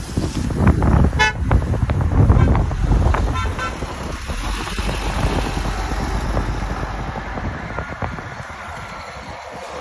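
City bus pulling away from the stop, its engine rumble loud for the first few seconds and then fading as it drives off. Two short toots sound, about a second in and again about three and a half seconds in.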